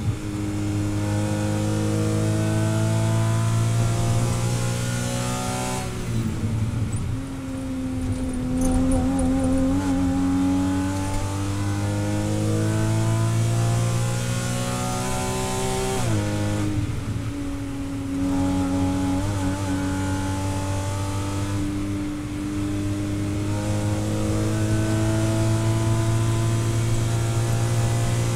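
A Porsche Cayman 981's naturally aspirated 2.7-litre flat-six, heard from inside the race car's cockpit. It climbs through the revs, falls away under braking about six seconds in, then pulls up again. It drops sharply at an upshift about sixteen seconds in and climbs once more.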